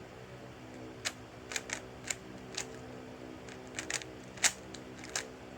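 3x3 Rubik's cube being turned by hand: irregular plastic clicks as the layers snap round, several over a few seconds, the loudest about four and a half seconds in. A faint steady hum sits underneath.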